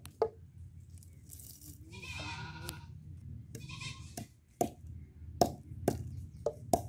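Wooden pestle striking cardamom pods in a wooden mortar: two sharp knocks at the start, then a run of knocks about two a second from about four seconds in. A goat bleats three times in between.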